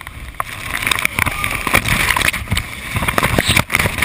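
Colorado River rapids at high flow: rushing, splashing whitewater around a boat, growing louder about half a second in.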